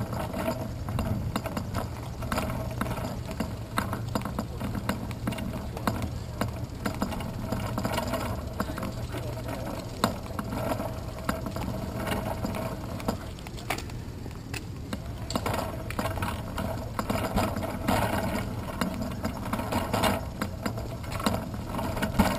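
Road bike being wheeled on foot: the freewheel ticks and loose parts rattle with each bump, and cleated cycling shoes click on the pavement, over a low steady hum of distant traffic.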